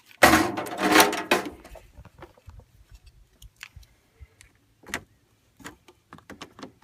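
Jumper cable clamps being handled and clipped onto a vehicle battery's terminals: a loud metallic clatter lasting about a second near the start, then scattered light clicks and knocks.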